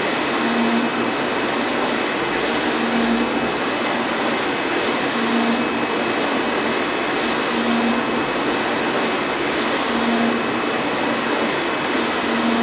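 UV flatbed inkjet printer running, its print-head carriage sweeping back and forth across the bed. A steady mechanical whir that swells and dips with each pass, about every second and a quarter, with a short low hum about every two and a half seconds.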